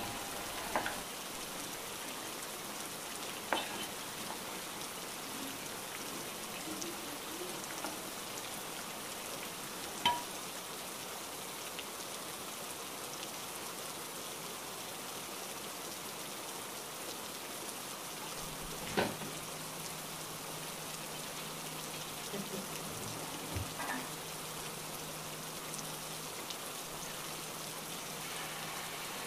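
Hot oil sizzling steadily as wheat bondas deep-fry in a pan, with a few sharp clicks now and then.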